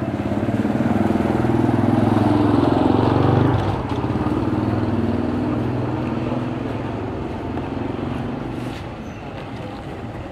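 Diesel-electric locomotive engine running as the locomotive moves slowly. The engine sound is loud and even, drops suddenly about three and a half seconds in, and then fades gradually.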